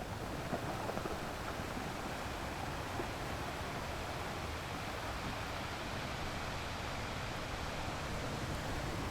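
Ocean surf breaking against rocks: a steady wash of water noise with no distinct single crashes.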